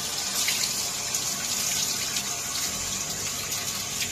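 Water running steadily from a hose, an even hiss with no breaks.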